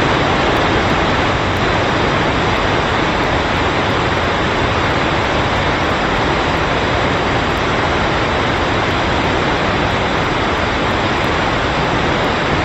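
A waterfall close to the microphone, a loud and steady rush of falling water with no let-up.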